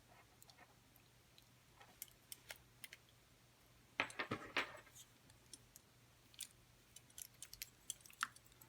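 Faint metallic clicks and rattles of a brass padlock and its key being handled, with a louder cluster of clicks about four seconds in and a run of small quick ticks near the end.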